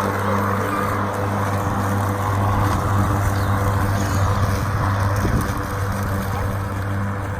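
Ryobi 40-volt 16-inch cordless battery lawn mower running: a steady electric motor hum under the whoosh of the spinning blade cutting grass.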